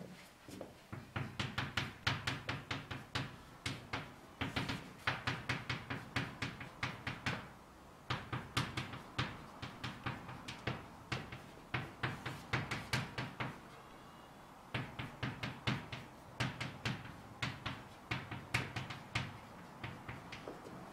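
Chalk tapping and scraping on a blackboard as words are written: runs of quick sharp taps, several a second, with short pauses about eight seconds in and again around fourteen seconds.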